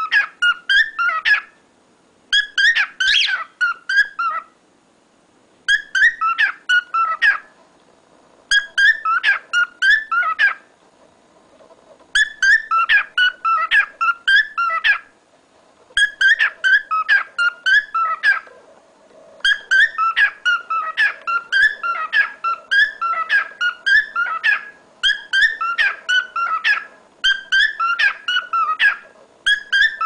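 Male whiteface cockatiel singing: phrases of rapid, high whistled notes about two seconds long, separated by short pauses, the phrases running more closely together in the second half.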